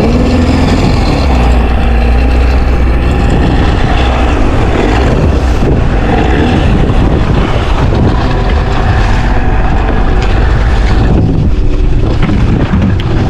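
Wind rumbling on the microphone aboard a small boat at sea: a loud, steady noise with a faint low hum under it.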